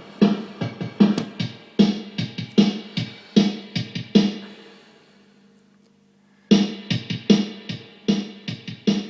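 Electric guitar played through a homemade lo-fi effects pedal with its vibrato and sample rate reducer engaged, giving picked notes a crunchy, gritty edge. A steady run of sharply attacked notes lets the last one fade out a little past halfway, then starts again about two seconds later.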